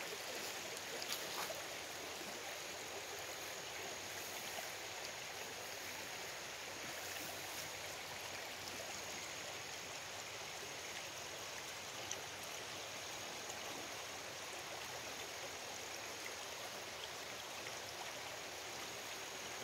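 Small shallow creek running over a stony bed and around fallen logs: a steady, even sound of flowing water.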